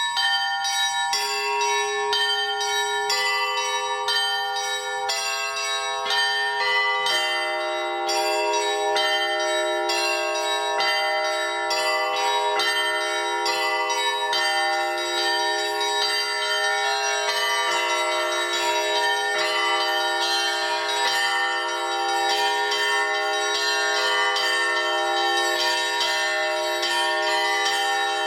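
Russian Orthodox festive church bell ringing (zvon) rung by one bell-ringer. Quick, patterned strikes on the small bells are joined one by one by heavier, lower-pitched bells over the first seven seconds, building to a full peal.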